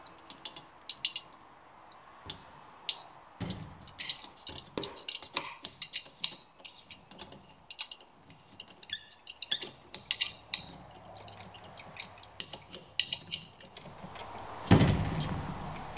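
Ratcheting hand driver clicking in short runs as a bolt on an aluminium boom clamp bracket is turned and tightened. Near the end, one louder thump.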